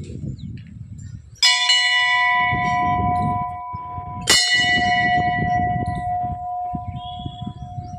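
Hanging temple bells rung by hand, struck twice about three seconds apart, each strike ringing on and slowly fading. A low rumble runs underneath.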